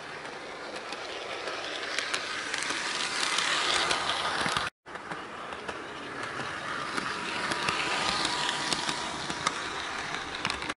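HO scale Walthers Trainline Santa Fe diesel locomotive running on sectional track: a steady whir of its small electric motor and wheels with a faint hum and light clicks over the rail joints. The whir grows louder as the locomotive comes close, twice, the first pass cut off abruptly about halfway through. It is a quiet, smooth-running engine, just finishing its running-in.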